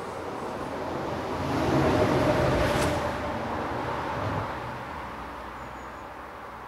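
A vehicle passing by: a rushing sound that swells to a peak about two to three seconds in, then slowly fades away.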